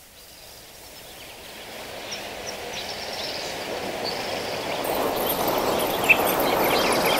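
Ocean waves rushing, fading in and growing steadily louder, with birds chirping over them from about two seconds in.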